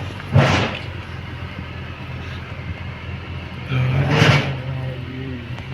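Kobelco excavator's diesel engine running steadily, with two loud, short noisy bursts, one about half a second in and one around four seconds in, the engine note strengthening with the second.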